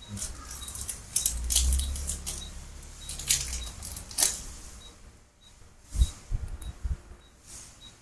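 Close rustling, scraping and clicking handling noise, with a low rumble for a couple of seconds, then a few sharp knocks about six seconds in.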